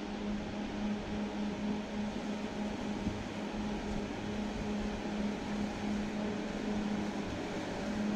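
Wheel loader's diesel engine running steadily with an even hum as it pushes snow with a front V-plow.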